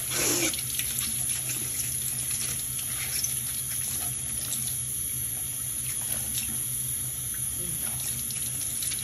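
Tap water running steadily from a faucet into a sink, splashing over a foam bath toy as it is rinsed by hand.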